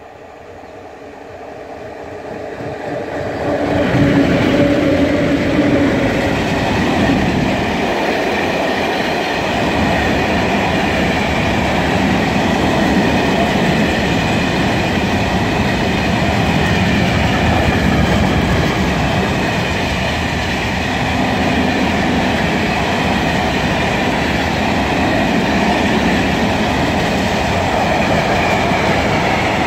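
PKP Cargo ET41 twin-section electric freight locomotive approaching and passing, growing louder over the first four seconds, then a long train of Falns hopper wagons rolling past with a steady noise of wheels on the rails.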